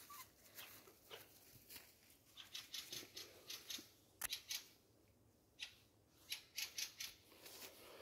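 Footsteps through forest undergrowth: leaves and stems swishing and crackling in quick, uneven strokes, several a second, with a short pause just before the middle.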